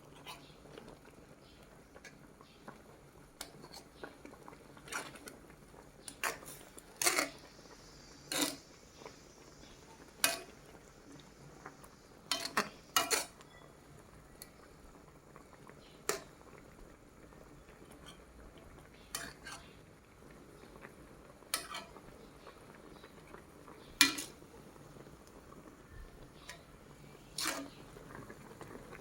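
Cutlery clinking against plates and bowls: about a dozen sharp clinks at irregular intervals, as when eating from dishes.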